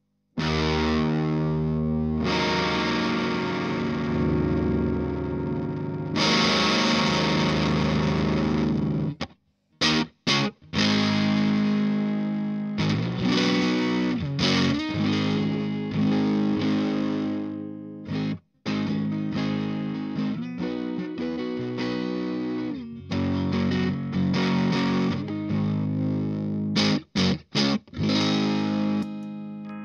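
Electric guitar played through an MXR Fet Driver, a MOSFET overdrive pedal, switched on and working again after its power-supply repair. Distorted chords ring out for a few seconds each, then shorter chords and notes follow with a few brief stops.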